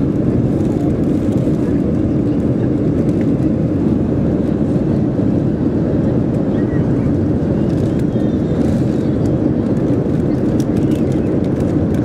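Steady cabin roar of a Boeing 737-400 climbing after take-off: its CFM56-3 turbofan engines and the rush of air over the fuselage, heard from inside the economy cabin.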